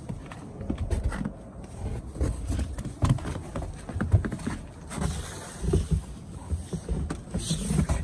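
Footsteps and clothing rustle from people moving over rough stone and snow, with irregular low thumps and rumble from a handheld camera being carried.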